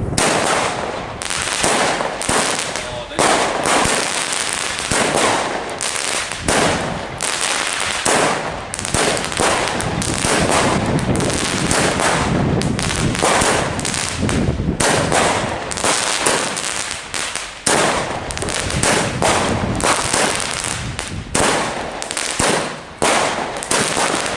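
Smokey Quartz firework cake from the Diamond Collection firing a continuous barrage of shots, several a second, with no real pause.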